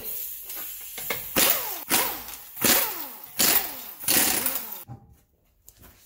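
Impact wrench spinning the lug nuts off a car wheel in about five short bursts, each winding down in pitch as the trigger is released.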